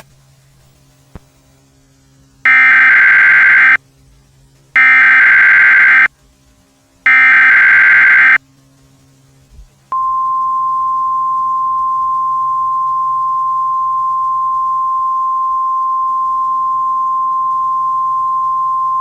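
Emergency Alert System SAME header: three identical bursts of digital data screech, about a second long each, followed a little over a second later by a long, steady single-pitch attention tone. It marks the start of an emergency broadcast alert. A low mains hum sits underneath.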